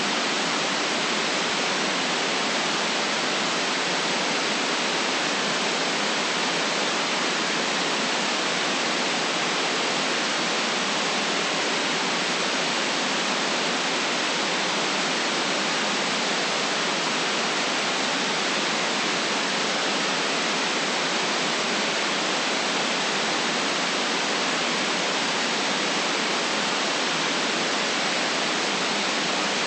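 Steady white noise: an even, unchanging hiss with no deep rumble and no separate sounds in it.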